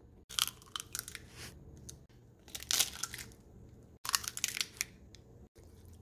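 Eggs being cracked and dropped into a bowl of grated cassava: a few short, sharp cracks of eggshell scattered through, the loudest near the middle and about four seconds in.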